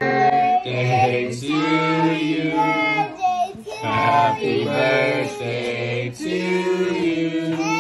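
Singing voices carrying a melody in held notes over a steady low accompaniment, in short phrases with brief breaks.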